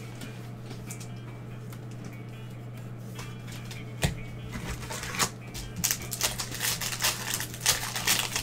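Trading cards and a card pack being handled: a single knock about four seconds in, then quick crackling, crinkling and rustling from about six seconds on as the pack is worked open and the cards are shuffled. A steady low hum runs underneath.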